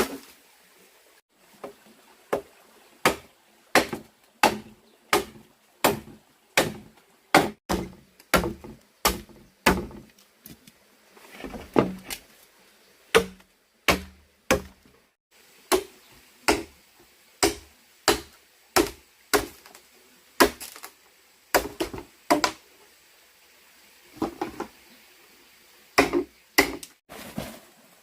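Repeated chopping blows on wood, about one and a half a second, in runs with a few short pauses.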